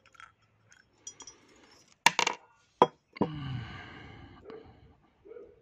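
Small metal parts of a GM12F carburettor clicking and clinking as they are handled. Two sharp knocks about two and three seconds in come as parts are set down on the table, followed by a short rattle.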